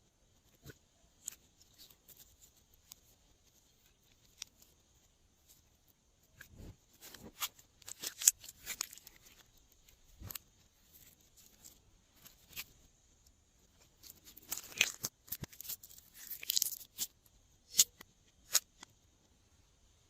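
Glossy slime being squished and stretched by hand, giving irregular sticky crackles and pops that come in clusters, with a few sharp single snaps near the end.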